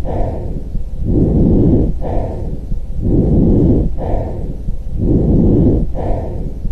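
Recorded lung breath sounds of the kind used to teach auscultation: a rushing in-and-out airflow noise. It makes about three full breaths, each about two seconds long, with a brief pause between breaths.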